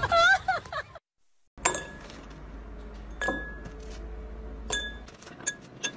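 Stones dropped one at a time into a glass of water, each hitting the glass with a sharp, briefly ringing clink. The clinks are well spaced at first and come quicker near the end.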